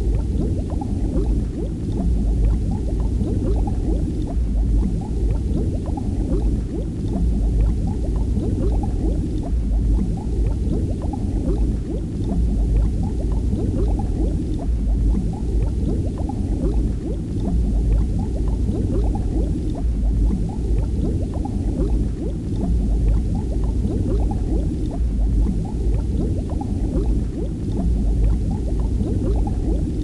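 Continuous bubbling, gurgling water over a low rumble: an underwater ambience of rising bubbles and moving water.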